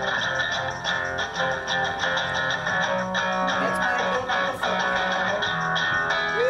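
Live rock band playing an instrumental passage without vocals, electric guitar out front over bass and drums.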